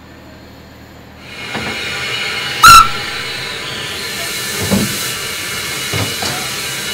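Orenstein & Koppel 0-4-0 steam locomotive hissing steam from about a second in, with one short, very loud whistle toot a little under three seconds in, then steady hissing with a few soft chuffs.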